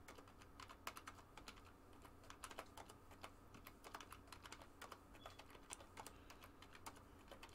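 Faint typing on a computer keyboard: quick, irregular key clicks, several a second.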